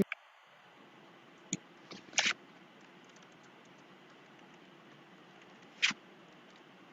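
A few isolated computer keyboard clicks over faint steady hiss: one at about a second and a half, a short cluster just after two seconds, and one near six seconds.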